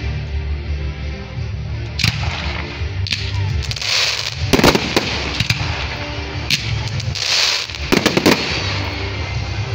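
Fireworks going off over a music track with a steady bass: sharp bangs and cracks of bursting shells, coming irregularly from about two seconds in, with two longer noisy crackling rushes around the middle and near the end.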